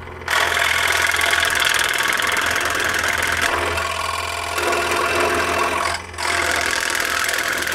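Scroll saw running over a steady motor hum, its blade cutting thin plywood. The loosely held workpiece chatters and rattles against the table as the up-and-down blade lifts it: the wobble that comes from not holding the piece down firmly. The cutting noise drops away briefly twice.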